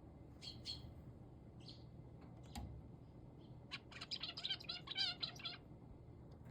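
Male zebra finch calling: a few short high chirps, then a rapid run of a dozen or so repeated notes lasting about two seconds.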